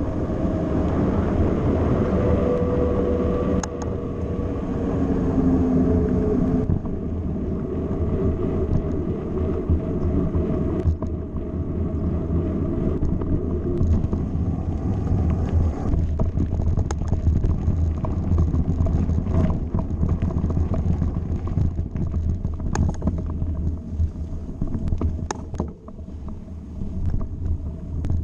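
Wind buffeting a handlebar-mounted camera's microphone over the low rumble of mountain bike tyres rolling at speed. From about halfway on there are frequent sharp knocks and rattles from the bike over rougher ground.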